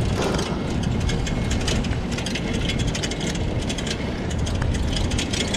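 A Yulu shared bike being ridden along a paved path: a steady low rumble with a constant run of small rattles and clicks from the bike and its front wire basket.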